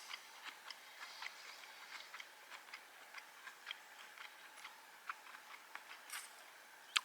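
Irregular light ticks and clicks, a few a second, with one sharper click near the end.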